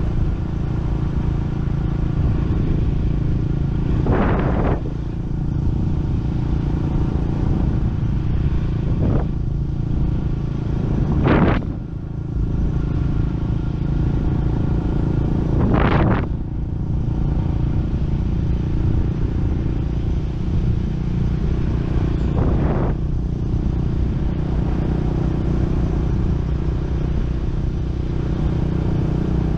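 Small motorcycle engine running steadily while riding along a road, with wind noise on the microphone. Several short surges of rushing noise come through, most strongly about 11 and 16 seconds in.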